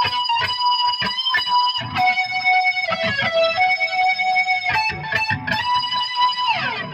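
Electric guitar, a Fender American Special through a Big Muff fuzz boosted by an overdrive pedal into a Hiwatt amp, playing a distorted lead line of long sustained high notes, re-picked often, that slides down in pitch near the end.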